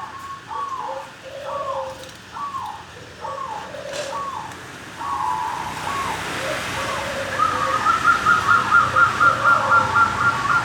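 Wild-caught zebra dove (perkutut) cooing: a repeated short note that hooks down in pitch, sounding a little more than once a second, then a fast run of quick short notes about seven seconds in.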